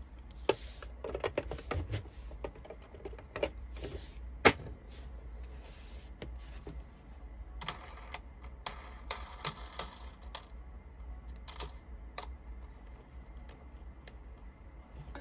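Scattered clicks, taps and rustling from hands fitting the table clamp of an Addi King Size knitting machine around its leg and turning the clamp's wing nut, with one sharper click about four and a half seconds in.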